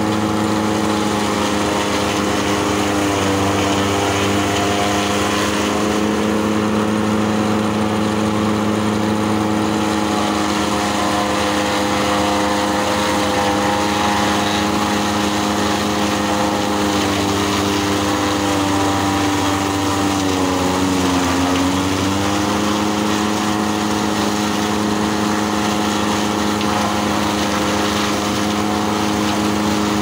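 Tractor engine running steadily at working speed, driving a fodder chopper that cuts green stalks and blows the chopped fodder out of its spout. The hum dips in pitch briefly about two-thirds of the way through, then recovers.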